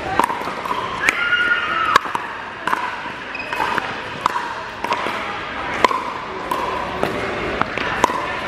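Pickleball rally: sharp, irregular pops of solid paddles striking a hollow plastic pickleball and the ball bouncing on the court, each pop with a short ring, echoing in a large indoor hall.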